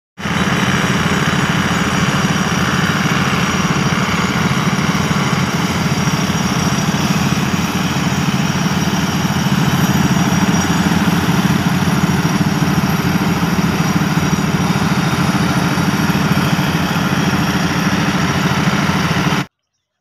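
Heavy machinery engine running steadily and loudly with an even, unchanging drone, then cutting off abruptly near the end.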